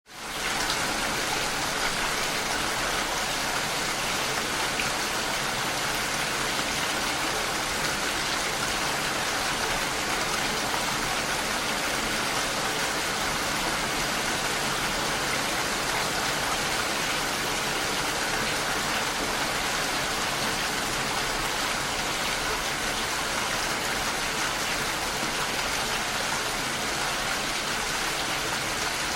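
Steady rain falling, an even dense hiss of drops with no thunder, fading in within the first half second.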